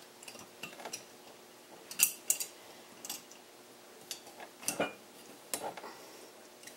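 Metal winged corkscrew being twisted into a wine bottle's cork: irregular small clicks and scrapes of metal on metal and glass, the sharpest about two seconds in and a cluster near five seconds.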